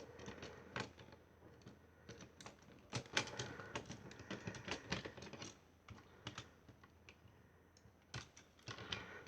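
Lego plastic pieces clicking and knocking as hands turn and reposition parts of a Lego model, in irregular scattered clicks, with a cluster of sharper ones about three seconds in.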